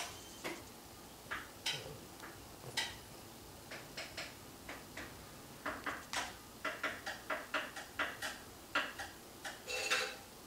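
A pug licking and smacking: a string of short, wet clicks, scattered at first and coming in quick runs in the second half.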